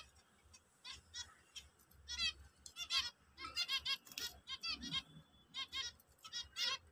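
Zebra finches calling: a long string of short, high beeping calls in quick, irregular succession.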